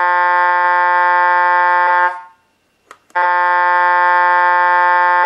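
Truck air-horn sound sample (horn 02) played by a Beier SFR-1 sound controller through its speaker: two long steady blasts of about two seconds each, a second apart. It is the newly uploaded horn sound, triggered from the transmitter stick.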